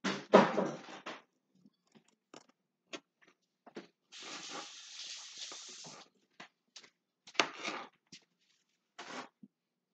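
Knife cutting on a cutting board: scattered short taps and scrapes, with louder chopping near the start and again about seven and a half seconds in. In the middle comes a steady hiss for about two seconds.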